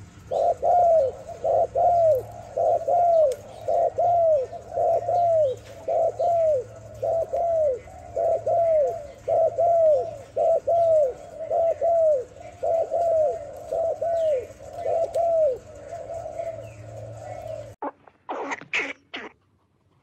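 Feral pigeons cooing: a steady run of short coos, each falling in pitch, over a low rumble. The cooing cuts off suddenly about two seconds before the end, and a few short, sharp sounds follow.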